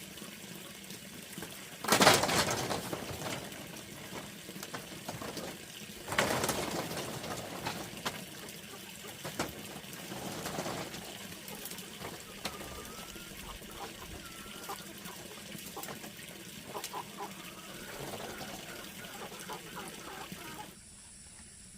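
Two loud gushes of water, about four seconds apart, each fading away over a second or two, with faint bird chirps in between.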